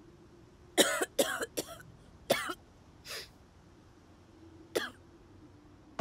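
A woman coughing in short harsh fits. First comes a quick run of three coughs about a second in, then another just after two seconds, a faint one around three seconds and a last one near the end.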